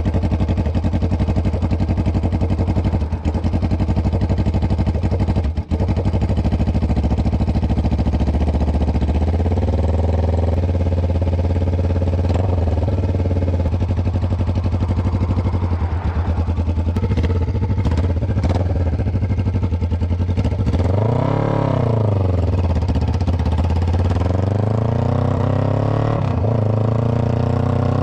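Kawasaki Ninja 500R's parallel-twin engine running as the bike is ridden, the revs climbing and falling once about two-thirds of the way through and climbing again near the end. The engine hesitates a little under load, which the rider puts down to very cold, dense air and no air filter on the freshly rebuilt carburettor.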